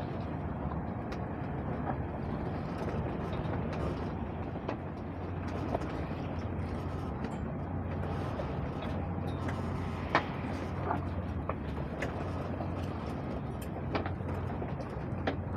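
Steady rush of wind and water aboard a sailboat under way, with a few sharp clicks and knocks, the loudest about ten seconds in, as lines and rigging are handled while trimming the sails.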